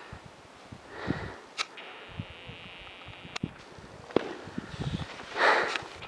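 Alpine skis on snow: a skier comes in close and turns, the edges scraping across the snow in a loud swish about five seconds in. Scattered clicks and softer swishes come before it.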